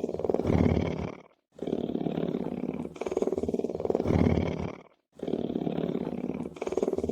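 Lion purring: a low, pulsing rumble that swells louder partway through each breath. The same stretch of a few seconds repeats about every three and a half seconds, with a brief dead gap between repeats.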